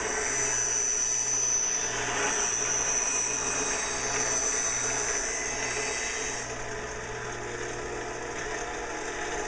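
Skate sharpening machine's grinding wheel grinding a steel hockey skate runner on its first pass over an unground factory edge, cutting a flat-bottom V hollow: a steady high hiss of wheel on steel over the motor's hum. The grinding stops about six and a half seconds in, leaving the motor running.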